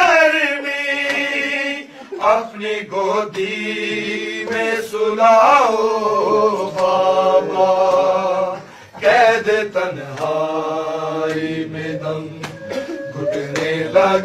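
A solo voice chanting an Urdu noha, a devotional lament, in long drawn-out melismatic notes over a low held drone, with short breaks about 2 seconds in and near 9 seconds.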